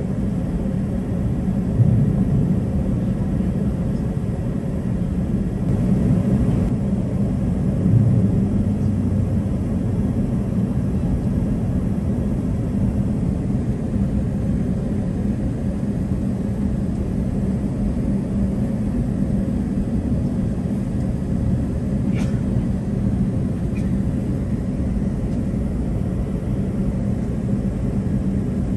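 Steady low rumble and hum inside an airliner cabin as the plane is pushed back from the gate. A couple of brief bumps come in the first eight seconds, and a short click about two-thirds of the way through.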